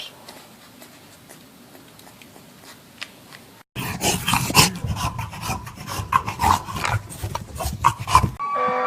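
A dog scuffling, with loud scraping and rubbing noise and many sharp clicks starting suddenly about four seconds in, after a few faint seconds. The loud stretch stops abruptly shortly before the end.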